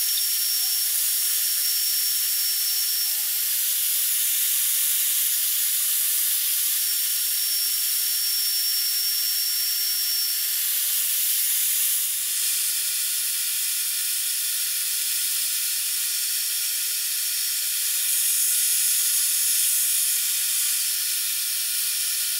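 Portable band saw running and cutting 1x1 aluminum angle: a steady high hiss of the blade, with a faint thin whine that comes and goes in the first half.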